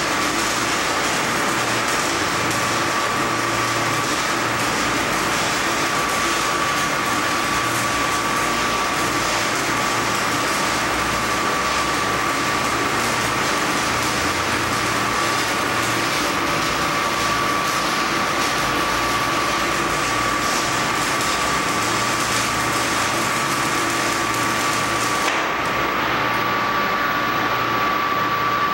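Stick (SMAW) welding arc from a 600 A welding rectifier, a steady crackling hiss as the electrode runs a weld on rusty steel sheet pieces, with a steady high whine underneath. Near the end the highest part of the hiss drops away as the arc is broken.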